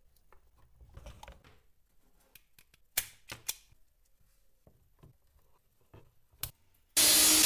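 Small clicks and rustles of hands handling electrical cable and plastic wire connectors, with two sharp clicks about three seconds in. Near the end a loud, steady rushing noise starts suddenly.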